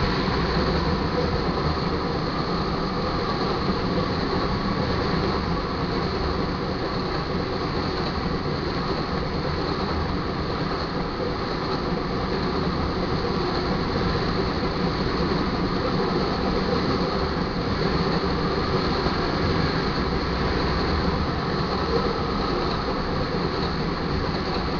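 Freight train of crude oil tank cars rolling steadily past, with a continuous rumble and rattle of steel wheels on the rails.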